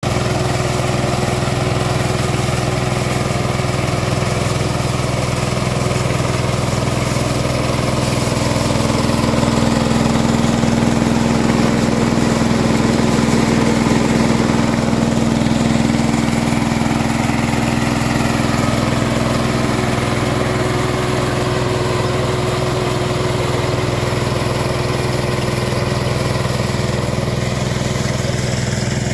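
Kirloskar mini combine harvester's engine running steadily as the machine cuts and threshes rice, a constant mechanical drone that grows slightly louder about a third of the way in.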